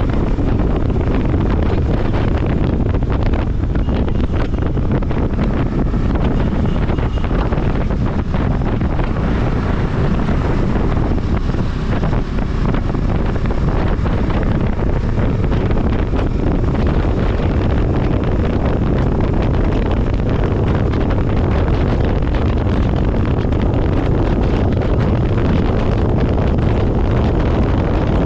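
Steady wind buffeting the microphone on a moving vehicle, with the rush of the ride underneath; a loud, unbroken low rumble with no change.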